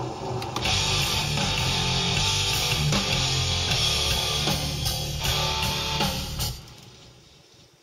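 Hard rock music led by electric guitar, playing loudly and then fading away near the end.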